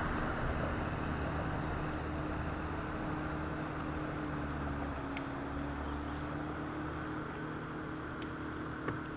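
Bow-mounted electric trolling motor humming steadily, its pitch dipping slightly midway. A sharp click comes near the end.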